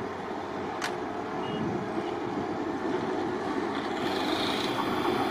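Tram running on the new track, measuring car 5521, its rumble growing steadily louder, with one sharp click about a second in.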